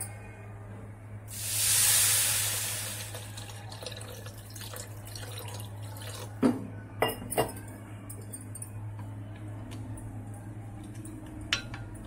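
Water poured from a steel vessel into a glass bowl of freshly roasted dalia, rushing loudest about two seconds in. This is followed by a plastic spoon clinking against the glass bowl three times about halfway through and once near the end, over a steady low hum.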